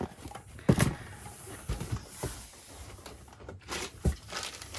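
Packaged merchandise being handled and set down: soft rustling and shuffling with a few knocks, the sharpest just under a second in and another about four seconds in.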